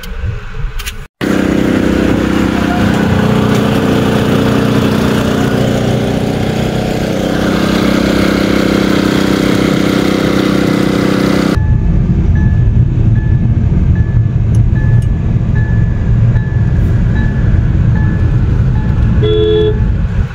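A roadside sugarcane juice crusher belt-driven by a small stationary petrol engine, running steadily with its geared rollers turning. About halfway through it cuts off suddenly to low road and engine rumble inside a moving car, with a short high beep repeating about twice a second.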